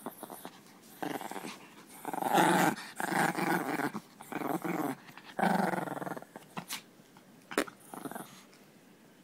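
A dog growling in a run of short bouts while it tugs on a toy in its mouth: play growling during tug-of-war. A single sharp click comes near the end.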